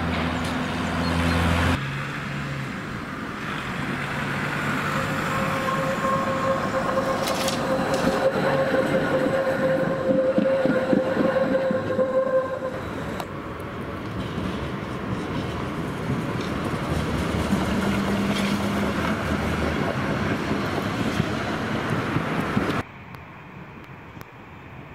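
A tram running on street track close by, its wheels rumbling and rattling over the rails, with a steady whine held for several seconds in the middle. Near the end the sound drops to quieter street noise.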